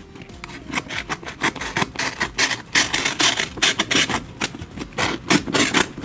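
Snap-off utility knife blade cutting excess paper along the edge of a cardboard box, a quick, irregular run of short scraping strokes.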